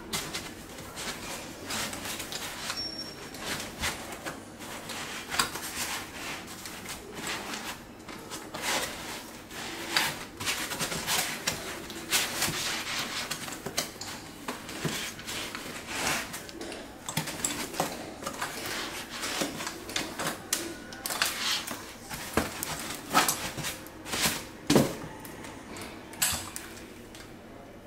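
Irregular clicks, rustles and light knocks of hands unpacking and handling a die-cast metal RC excavator and its parts in a foam-lined carry case, with a sharper knock near the end as the excavator is set into the foam.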